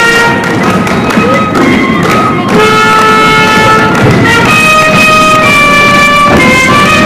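A small student wind ensemble playing a tune in held notes, with a short break about two and a half seconds in.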